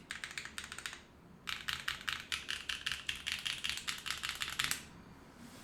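Fast typing on a Neo65 mechanical keyboard with lubed Gateron Cream Soda linear switches, GMK keycaps, an FR4 plate and no foam. Quick keystrokes pause briefly about a second in, then a faster run of keystrokes stops shortly before the end.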